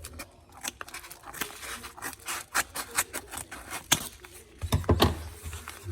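Trading cards being handled and slid against each other: quick rubbing and scraping with many small clicks, and a few heavier knocks near the end.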